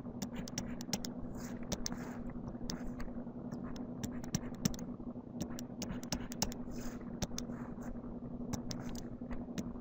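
Stylus tapping and scratching on a tablet screen while handwriting: irregular light clicks and short scrapes, over a steady low hum.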